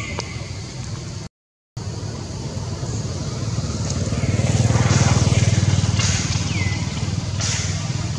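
Low engine hum of a passing motor vehicle, swelling to its loudest about five seconds in and then easing off. The sound cuts out for half a second about a second in, and a short falling bird chirp comes near the end.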